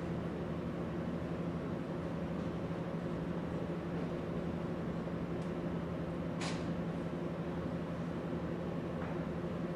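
A steady low mechanical hum with several steady tones, with one brief sharp noise about two-thirds of the way through.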